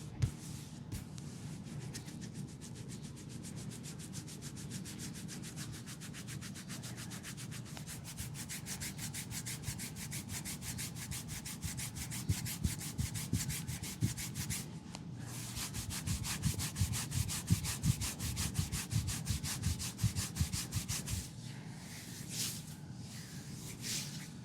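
Fast, even rubbing on a leg during a massage, many quick strokes a second, with a short break about halfway and the strokes thinning out near the end.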